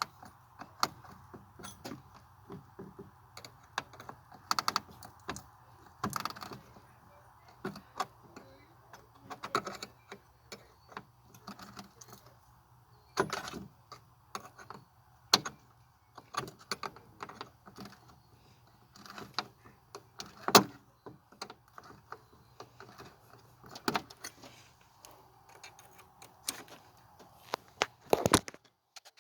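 Irregular clicks, knocks and light metallic rattles of parts and hand tools being handled as the engine's air intake is fitted back on, with a few sharper clanks.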